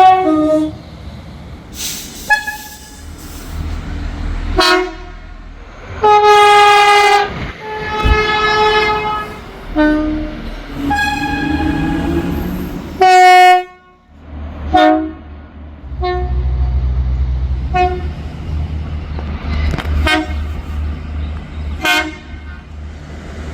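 Irish Rail train horns sounding one after another, from several different trains. There are about a dozen blasts: most are short toots, and a few are held for a second or so. A low diesel rumble lies under some of them.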